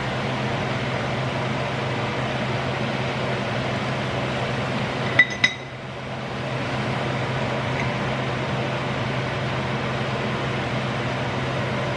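Churros frying in hot oil in a stainless steel pan, a steady sizzle over a low hum, with a metal slotted spatula clinking twice against the pan about five seconds in as the churros are lifted out.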